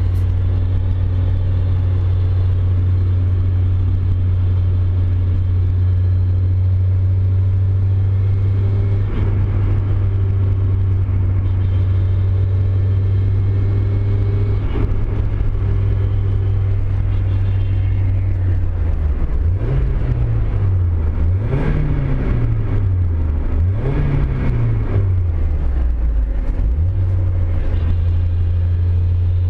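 1993 Mazda Miata's 1.6-litre four-cylinder engine idling steadily, then revved briefly three times about two-thirds of the way through before settling back to idle. The car has a high-pitched metallic semi-grinding noise in gear, which the owner suspects is something loose rattling in the bellhousing.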